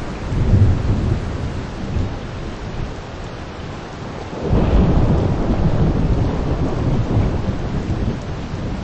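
Steady rain shower with thunder rumbling over it: a short rumble just after the start, and a longer, louder roll that begins about halfway through.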